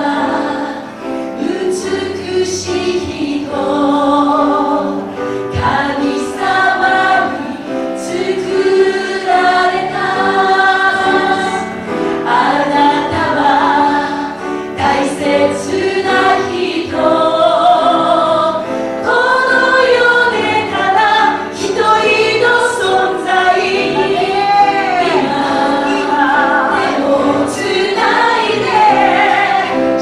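Group of women singing a Japanese worship song in harmony through microphones, with piano and guitar accompaniment.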